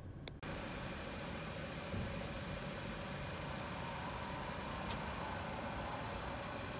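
Steady mechanical hum with a faint steady tone, starting abruptly about half a second in, with a couple of faint ticks.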